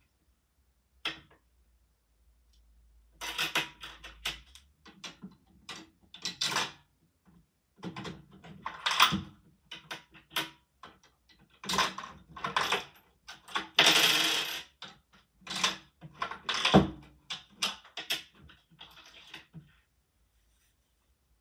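A coin clinking and scraping against Lego bricks as it is fed into a Lego candy machine's coin mechanism, with plastic parts clacking: a run of irregular clicks and short rattles, with one longer scrape about two-thirds of the way through.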